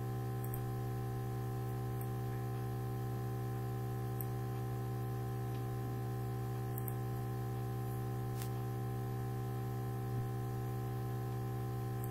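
Steady electrical mains hum with many overtones, unchanging throughout, with a few faint clicks of a computer mouse.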